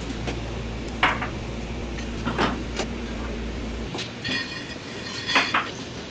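Scattered knocks and clinks from a knife and a large fish being handled on a plastic cutting board over a stainless steel counter, with the sharpest knocks about a second in, around two and a half seconds, and near the end. A steady low kitchen hum underneath stops abruptly about four seconds in.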